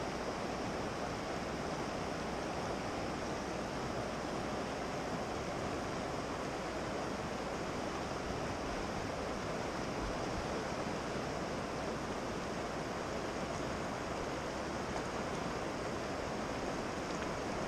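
Fast river current rushing steadily over rocks.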